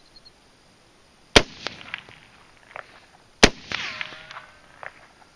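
Two rifle shots about two seconds apart from a mud-caked AR-15, each a sharp crack followed by fainter cracks. A short falling whine trails the second shot.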